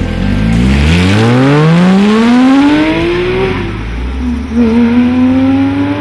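Porsche 997 GT3 RS flat-six through a SharkWerks aftermarket exhaust, accelerating hard: the engine note climbs for about three seconds, drops at an upshift, then climbs again more slowly in the next gear.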